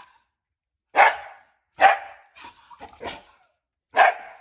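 Shiba Inu barking, four sharp barks about a second apart, with a few softer yips between the second and third.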